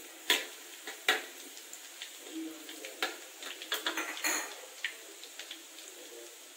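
Slotted metal spatula scraping and clicking against a steel wok as minced garlic is stirred in oil. There are a handful of separate scrapes and knocks, about a second apart.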